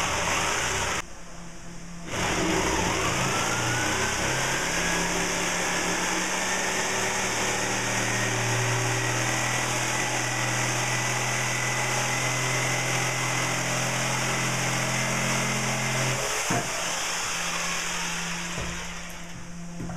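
Black+Decker jigsaw sawing through a wooden plank. It runs briefly and stops for about a second, then starts again with a rising whine as the motor spins up. It cuts steadily and stops shortly before the end.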